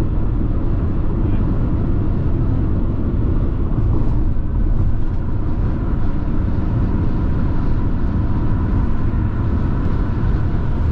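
Steady road and engine noise of a car driving at low speed, heard from inside the cabin.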